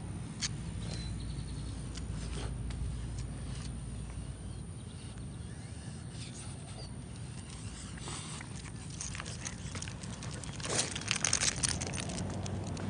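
A steady low outdoor rumble with scattered light ticks; a little before the end, a quick run of clicks and taps as footsteps start on the pavement.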